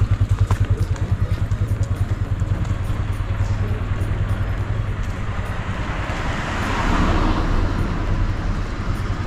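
Street traffic: a motor vehicle's engine throbs low and evenly, and the noise of a passing vehicle swells about six to eight seconds in.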